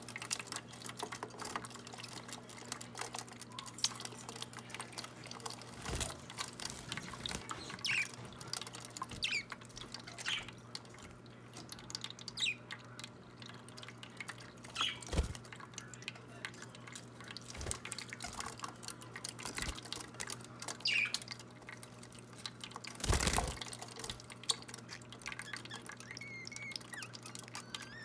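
Small bird-bath water fountain trickling and dripping steadily while budgies bathe in it, with a few louder splashes, the biggest late on. Budgies give short chirps now and then over a low steady hum.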